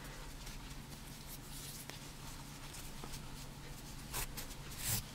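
Faint rustling and scratching of cotton yarn and a crochet hook handled while fastening off, with a couple of slightly louder brushes near the end, over a steady low hum.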